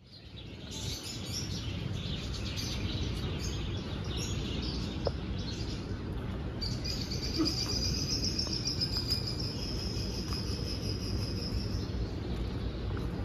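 Outdoor background sound: a steady low rumble, with a high, rapid chirping trill from a creature in the trees that starts about halfway through and runs on.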